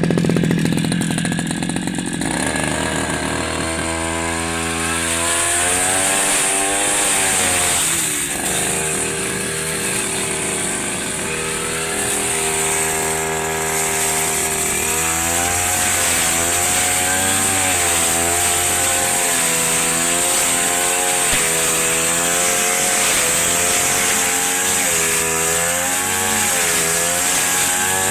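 Two-stroke grass cutter running hard through thick green grass. Its engine pitch repeatedly sags and recovers as the load of the grass comes and goes, over a high whine.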